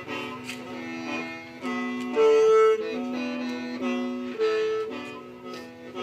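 Hmong khen (qeej), a bamboo free-reed mouth organ, played as a dance tune: several reed notes sound at once in droning chords that shift every half second or so, with a few louder held notes.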